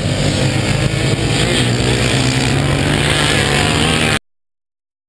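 Engines of a Yamaha Banshee 350, a Honda TRX700XX, a Bombardier 650 Baja quad and a 450 dirt bike running hard together as they race up a sand dune on paddle tires. The steady engine noise cuts off abruptly about four seconds in.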